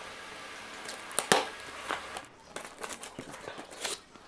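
Cardboard shipping box being cut and torn open by hand, the cardboard and tape giving scattered rustles and sharp clicks, with one louder snap about a second in.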